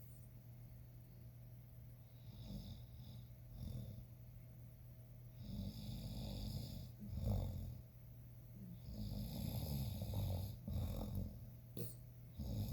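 Cavalier King Charles Spaniel snoring in deep sleep, a snore on the breaths that comes back every second or two. It is soft for the first few seconds and louder from about halfway through.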